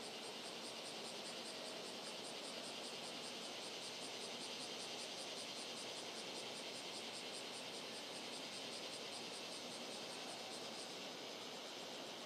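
An insect, such as a cricket or katydid, chirping in rapid, even high-pitched pulses that stop about eleven seconds in, over a steady hiss.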